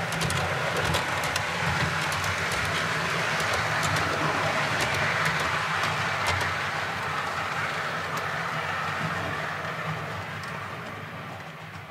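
HO-scale model train running past on the track: the locomotive's motor hums and the wheels rumble with scattered clicks over the rail joints. It grows louder as the train passes, then fades away near the end.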